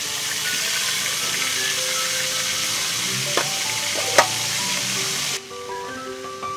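Chicken frying in hot oil in a wok, a steady sizzle, with a metal spoon clinking twice against an aluminium bowl at about three and a half and four seconds in. The sizzle drops off suddenly a little after five seconds.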